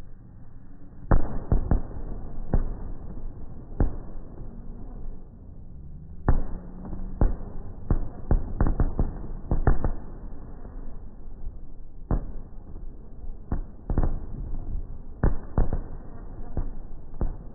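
Aerial fireworks shells bursting in an irregular series of sharp booms and cracks, several coming in quick clusters about 8 to 10 seconds in and again near the end.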